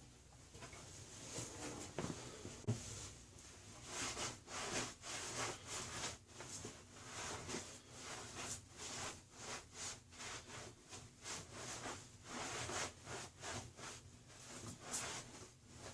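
Floor being wiped dry by hand where the leaking toilet stood: repeated rubbing strokes, about two a second, that get steadier and more frequent from about four seconds in.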